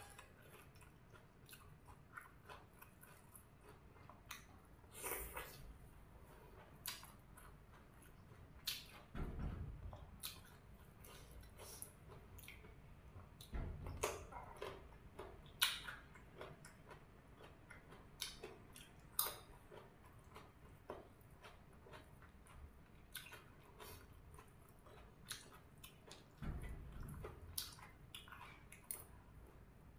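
A person eating vegetables and fish dip with the fingers, chewing and biting with scattered soft clicks and smacks at an irregular pace, and a few louder chewing spells.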